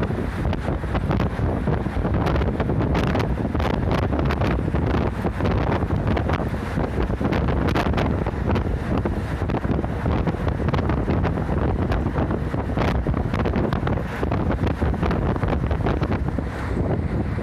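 Route bus underway: steady engine and road noise with wind buffeting the microphone and frequent small rattles and clicks.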